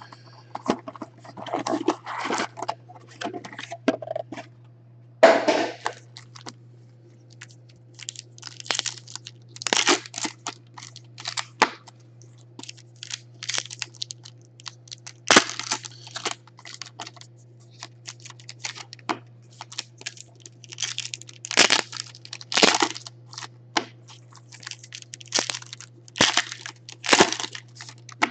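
Foil trading-card pack wrappers crinkling and tearing as they are ripped open by hand, in short irregular bursts, over a steady low hum.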